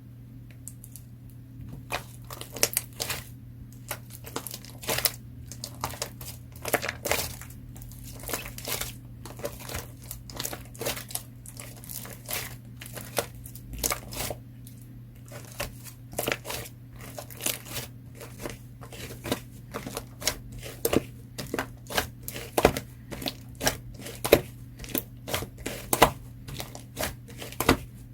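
Melted clear slime being pressed and squished by hand, giving irregular short clicks and crackles, often several in quick succession, starting about two seconds in.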